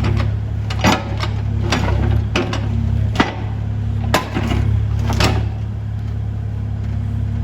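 Diesel engine of a piece of demolition equipment running steadily, with repeated sharp clanks and knocks of broken concrete rubble.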